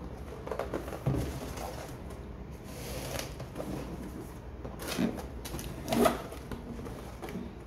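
Cardboard box being handled and opened: scuffs and rustles as the box is turned, then the lid's cardboard tab is pulled and the lid lifted, with sharp knocks about five and six seconds in, the second the loudest.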